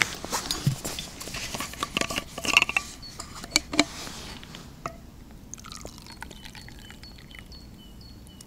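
Clicks and clatter of a metal thermos flask's cap being unscrewed and handled, then liquid poured from the thermos into a cup, more quietly, from about halfway through.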